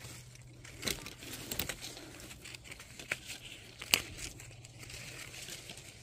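Leaves and twigs of a persimmon tree rustling as persimmons are handled and picked by hand, with a few sharp snaps; the loudest comes about four seconds in.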